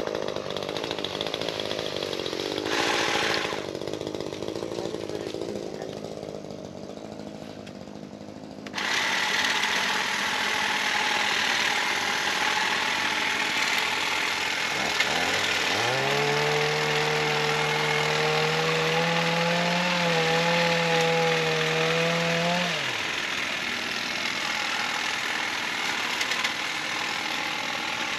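Cordless electric saw cutting branches. A steady loud noise comes in sharply about nine seconds in and runs on. About halfway through, the motor spins up with a rising whine, runs steadily for about seven seconds and cuts off abruptly.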